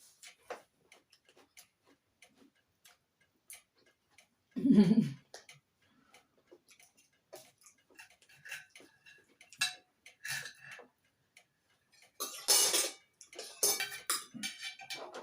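Small clicks and taps of eating at the table, with cutlery on plates and chewing. There is one loud dull thump about five seconds in, and a louder burst of clatter near the end.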